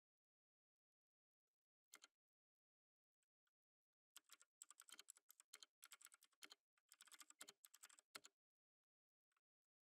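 Quiet typing on a computer keyboard: a short burst of keystrokes about two seconds in, a few stray taps, then fast, steady typing from about four seconds in until just past eight, with brief pauses.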